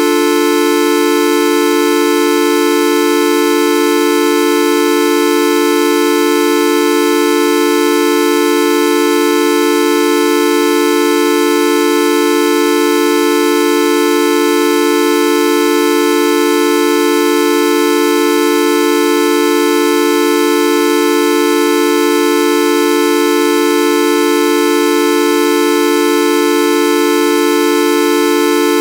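The Videoup V1.2 sound effect, a loud, unchanging sustained tone rich in overtones, with a horn-like buzz. It is held without any break or change in pitch.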